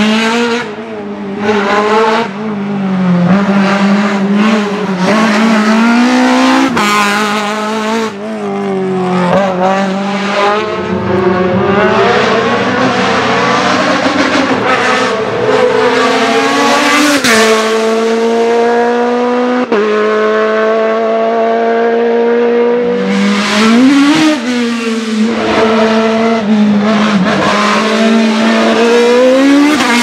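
Racing car engines at high revs climbing a hillclimb course: the pitch rises steadily under full throttle and drops sharply at each upshift, several times over. Near the end a single-seater formula car accelerates past.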